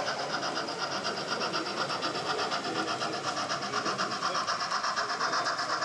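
Model steam locomotive and its train running along the layout track, with a steady, fast, even rhythmic pulsing.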